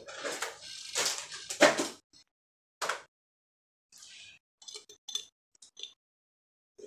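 Rummaging through makeup items: clinks, knocks and rustling of small containers being moved about, with a few sharp knocks in the first two seconds, then a pause and scattered small clicks.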